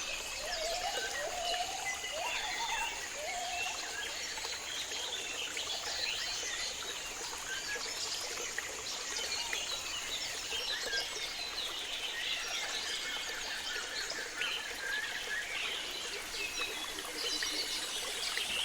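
Tropical rainforest birds chirping and calling, many at once, over a steady hiss of running river water. A steady high-pitched hum stops about halfway through.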